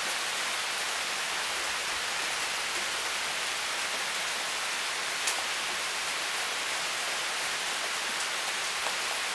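Steady rain falling, an even hiss with scattered ticks of drops striking nearby surfaces. One sharper drop hit comes about five seconds in.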